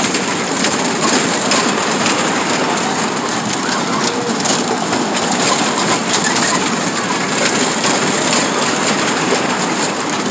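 A spinning amusement ride's cars in motion, a steady rushing, rattling noise with a few scattered clicks.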